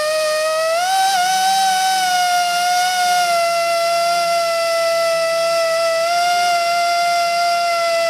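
Air-powered hand-held glass edge grinder running with a steady high whine as it grinds the edge of a wet glass sheet. The whine steps up in pitch about a second in, then holds.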